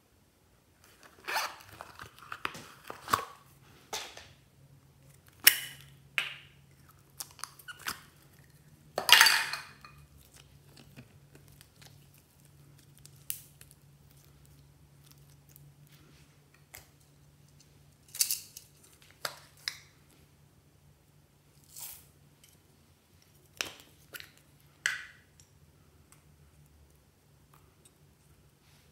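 Hands handling plastic toy cases and slime: scattered clicks, taps and short crackling rustles with quiet gaps between them. The loudest are a sharp click about five seconds in and a longer crackle of about a second near nine seconds.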